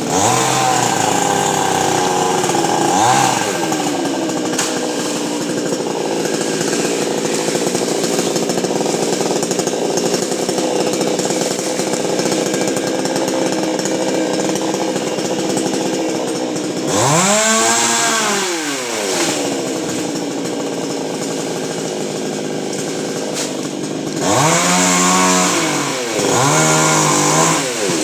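Two-stroke chainsaw engine running steadily throughout. It is revved up and let back down once about two-thirds of the way through, then twice more in quick succession near the end.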